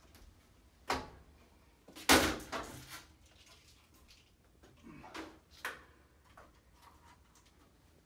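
Metal heat panel knocking and scraping against a stainless-steel rack as it is fitted into the top shelf: a knock about a second in, a louder clatter at about two seconds, and a few lighter knocks around five seconds.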